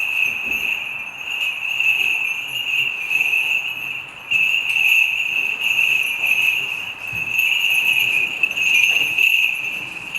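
Small bells jingling continuously in a high, shimmering band, easing off briefly about four seconds in and then returning.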